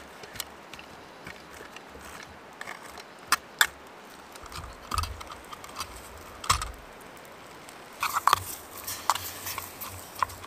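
Metal spoon clinking and scraping in a small metal camp pot of rice, with a wood campfire crackling in sharp scattered pops. The clinks and scrapes come thick near the end.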